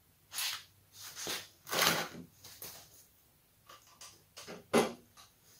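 Handling noises from a tipped-up push lawn mower and its oil drain pan being moved about: several short scraping, rubbing bouts, the longest about two seconds in, and a sharp knock near the end.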